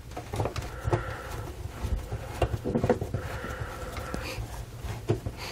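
Phillips screwdriver turning a screw out of a plastic roof-vent trim ring: small clicks and creaks from the tip working in the screw, with two brief squeaks about a second in and again near the middle.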